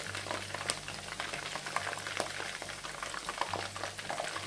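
Flour-coated chicken pieces frying in hot oil in a frying pan: a steady sizzle dotted with many sharp pops and crackles. Under it, a low hum cuts in and out.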